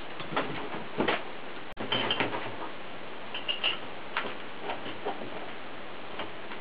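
Light, scattered clicks and taps of small metal parts being handled against a galvanized steel pipe fitting, with a couple of short high squeaks about two and three and a half seconds in.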